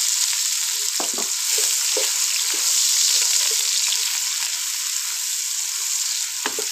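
Sliced onions sizzling in hot ghee in a pan, stirred with a wooden spatula that scrapes through them and knocks lightly against the pan a few times.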